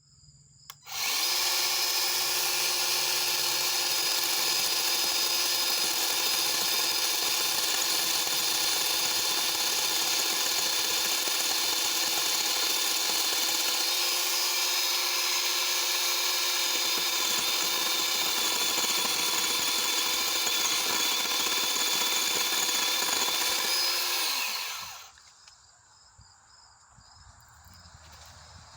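Greenworks 40V 12-inch cordless electric chainsaw running at a steady high-pitched whine, starting about a second in, then spinning down and stopping a few seconds before the end.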